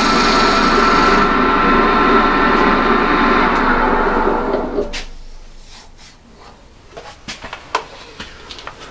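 Union Jubilee wood lathe running steadily, then switched off and winding down about five seconds in. A few light knocks and clicks follow.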